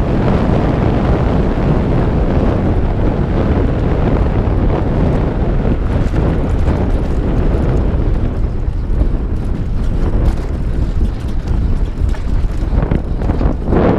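Wind rushing over a GoPro HERO4 Black's microphone as a mountain bike is ridden fast down a trail. Short knocks and rattles from the bike over rough ground come more often in the second half.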